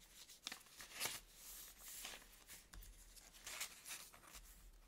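Faint rustling and brushing of a handmade journal's paper pages being handled and turned, in a few short soft strokes.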